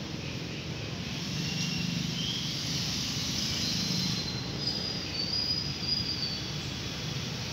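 Steady background ambience with a low rumble that swells for a few seconds in the middle, and a few faint high-pitched chirps.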